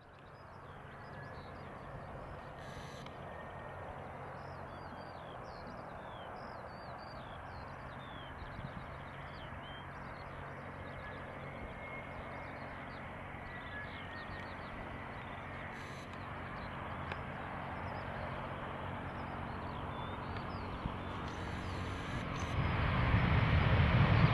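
Airbus A350-900 with Rolls-Royce Trent XWB engines on final approach: a steady jet hum that slowly grows louder, then swells into a heavy rumble near the end as the jet flares and touches down. Birds chirp faintly above it through the first half.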